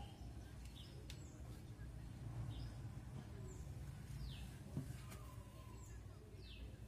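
Faint bird chirps: short notes that fall in pitch, about one a second, over a low steady hum. There is one small click a little before the five-second mark.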